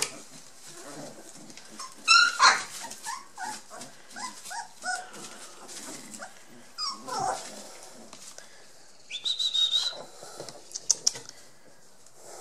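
Young Border Collie puppies yelping and squealing while they play-fight. A loud high cry comes about two seconds in, then a run of short falling yelps, a longer falling whine, and a high thin squeal later on.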